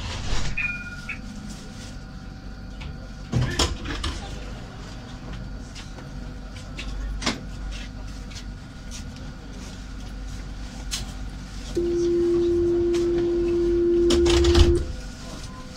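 Citadis 302 tram standing with its doors open: a steady low hum in the cab with a few sharp clicks, then a loud steady door-closing warning tone for about three seconds, ending in a loud thump as the sliding doors shut before departure.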